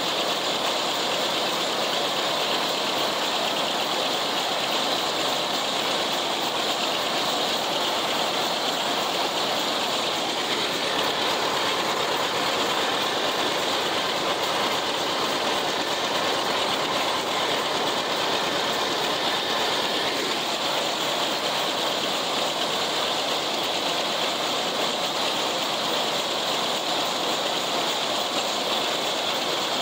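John Deere 70 two-cylinder tractor engine running steadily under load, mixed with the clatter of a pull-type International 990 haybine cutting hay. The mix is loud and unbroken, heard from the tractor seat.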